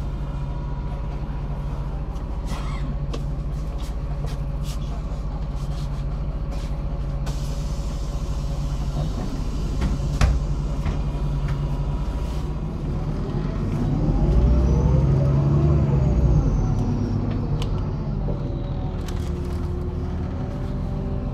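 MAZ-103 city bus diesel engine droning steadily while riding, heard from on board, with a sharp knock about ten seconds in. From about two-thirds of the way in, the engine note gets louder, rises, then settles back down.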